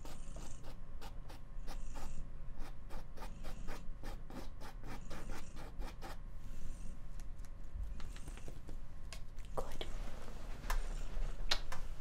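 Paintbrush dabbing acrylic paint onto a stretched canvas in quick, even taps, about four a second, as the poppies are stippled in. Near the end come a few louder, sharper clicks and scrapes.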